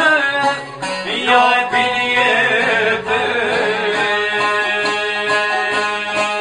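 Long-necked lute strummed in a steady folk rhythm, accompanying an Albanian folk song, with a voice singing wavering, ornamented notes over it in the first half.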